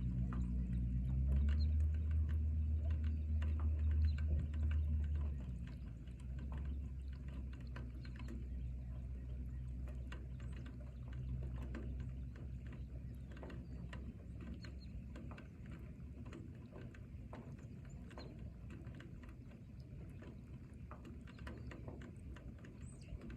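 Rain falling, heard as many scattered drop ticks, with a strong low rumble in the first five seconds that fades away over the following several seconds.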